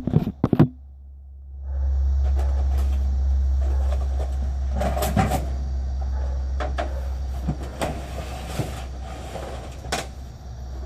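Knocks and clunks, then a steady low rumble with scattered clatter, as a phone is set down and a heavy CRT television is handled and shifted to get at its back.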